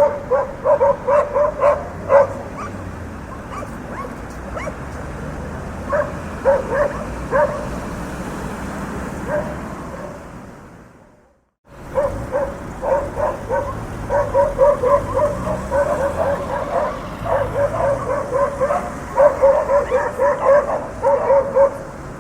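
Dogs barking in quick runs of short barks over a steady low hum of street traffic. The whole sound fades out to silence about halfway through, then fades back in, and the barking grows busier after it.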